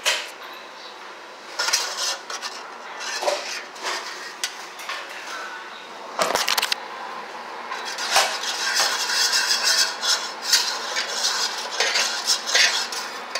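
A fork stirring jello powder in a metal pan, clinking and scraping against the pan in quick, irregular strokes while the powder dissolves. The strokes come thicker in the second half, with a few sharper knocks among them.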